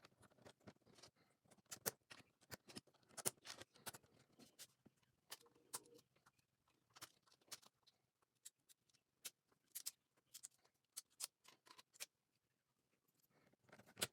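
LEGO bricks clicking and rattling as they are handled and pressed together: many sharp little clicks at irregular intervals, with a short pause about twelve seconds in.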